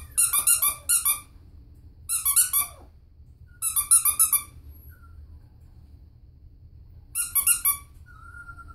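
A squeaky plush toy squeezed in four quick bursts of rapid, high-pitched squeaks.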